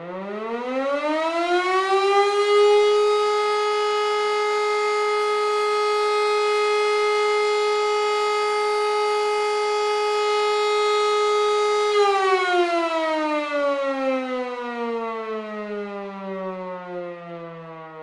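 Fire brigade alarm siren winding up to a steady wail over about three seconds and holding one pitch. About twelve seconds in it winds slowly down, falling in pitch and fading.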